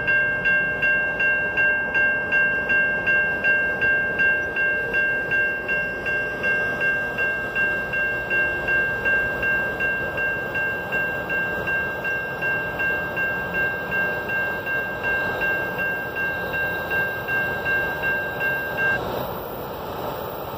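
Railroad grade-crossing bell ringing at an even two and a half strikes a second, a clear high ring that slowly grows fainter and cuts off about 19 seconds in: the crossing signal shutting off once the train has cleared.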